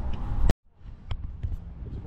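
Wind rumbling on the camera microphone, broken by a sharp click about half a second in and a brief dropout to silence at an edit; the low wind rumble then returns with a single faint tick.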